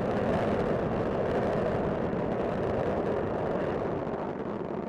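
Space Shuttle Discovery's solid rocket boosters and three main engines roaring steadily during ascent, about half a minute after liftoff.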